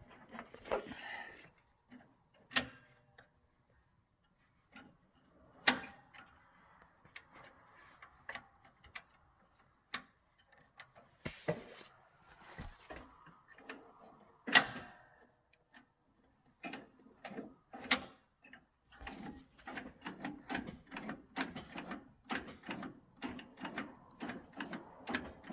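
Scattered light clicks and knocks of hand work on a car engine's wiring and fittings, a few of them sharper, thickening into a quicker run of ticks over the last few seconds.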